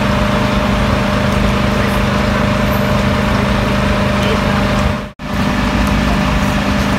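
Steady engine drone of running fire brigade pumping equipment, a constant low hum with a fainter higher tone, breaking off for a moment about five seconds in.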